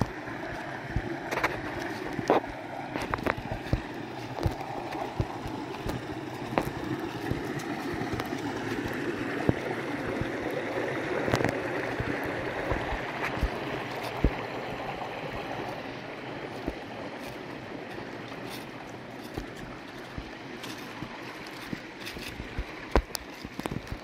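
Shallow creek water running over flat rock ledges and small riffles: a steady rush that swells a little midway, with scattered light clicks.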